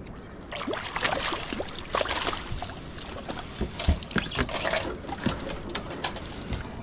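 Water splashing and pouring off a landing net as a hooked red snapper is scooped out of the river and lifted over the side of a wooden boat, with trickling and dripping and a thump about four seconds in.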